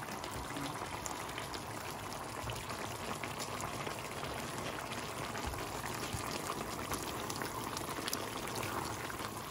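Chicken asado sauce bubbling in a frying pan over raised heat: a steady simmer with many small pops.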